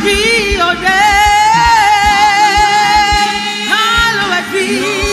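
Live gospel worship song: a lead singer holds long, wavering, ornamented notes without clear words over a steady low beat.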